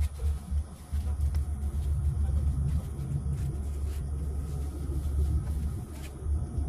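Wind buffeting the microphone: a gusting low rumble, with a few faint clicks above it.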